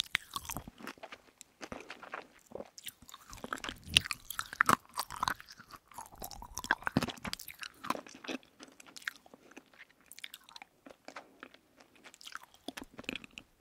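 Chewing chewy candy right at the microphones, with irregular sticky mouth clicks and crunching.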